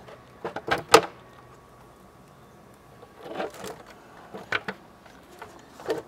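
Scattered clicks, knocks and clatter of plastic engine parts and tools being handled as the upper intake manifold is worked loose, with the sharpest knock about a second in and short rattling clatters in the second half.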